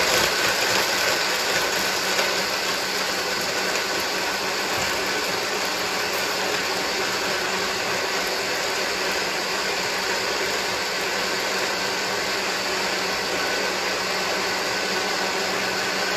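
Countertop blender running, a loud steady whir as it blitzes a smoothie with ice cubes and cacao nibs for a final blend. It is a little louder for the first couple of seconds, then even.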